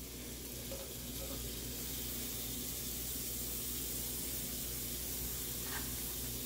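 Sliced red onion sizzling in a little hot oil in a stainless steel pot, as it starts to sauté: a steady hiss that grows a little louder about a second in.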